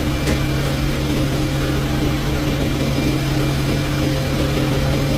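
Steady low machine hum over a constant hiss, unchanging throughout.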